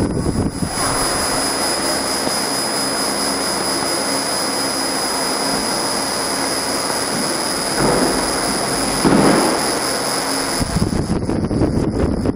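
CO2 laser marking machine engraving wood: a steady rushing of air with a faint high whine, which cuts off about ten and a half seconds in, with two brief swells just before.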